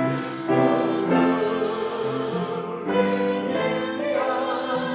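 Male voice choir singing held, vibrato-rich chords that change every second or so.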